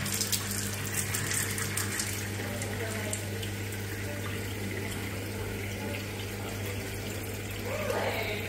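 Kitchen hot tap running steadily into a sink, with a steady low hum underneath. No burner ignition is heard: the combi boiler fails to fire on hot-water demand, a fault the engineer puts down to a damaged flow micro switch.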